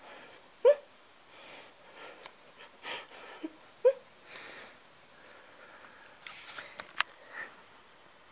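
Old dog asleep, breathing noisily through its nose with soft snuffling hisses, giving two short squeaky whimpers that slide down in pitch, about a second in and again near four seconds. A sharp click about seven seconds in.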